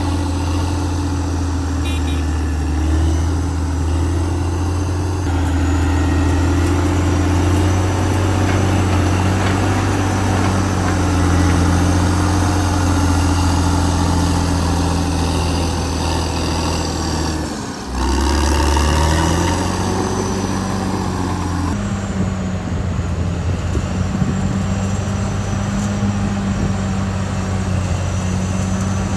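Caterpillar D6R XL bulldozer's diesel engine running steadily, its note dipping briefly about two-thirds of the way through.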